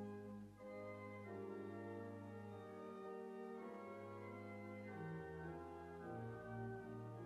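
Church organ playing a hymn in slow, held chords that change about once a second, over a bass line in long sustained notes.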